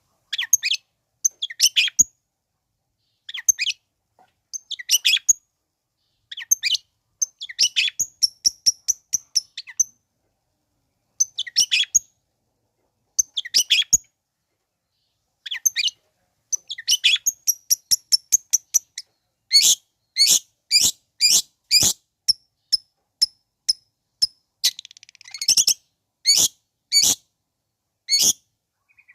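Long-tailed shrike (cendet) song: short runs of rapid, sharp high notes with brief silent gaps between them. From about twenty seconds in, it changes to a string of single sharp calls, about two a second.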